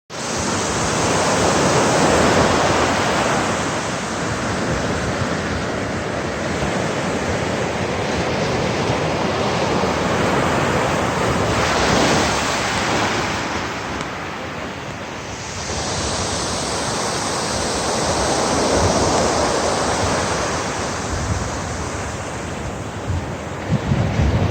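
Sea waves washing in, a steady rushing that swells and eases every several seconds.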